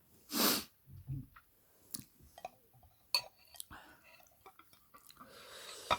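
Someone eating ramen noodle soup: a loud slurp about half a second in, a few light clicks of utensils on the bowl, and a longer slurp near the end.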